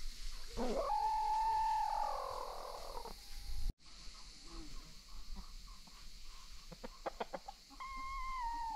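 A rooster crowing: one long call that rises, holds a steady pitch for over a second, then falls away. A few short clucks come a couple of seconds before another long, falling call begins near the end.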